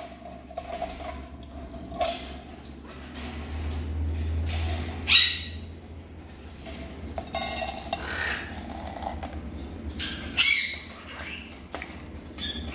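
Pet parrots squawking, with two loud calls about five and ten seconds in. Between them come clicks and rattling of a cage food bowl being handled.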